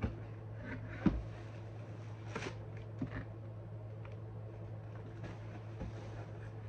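Cardboard sneaker box being handled: a sharp knock about a second in as the lid comes open, a brief rustle of tissue paper and cardboard, and a few light taps, over a steady low hum.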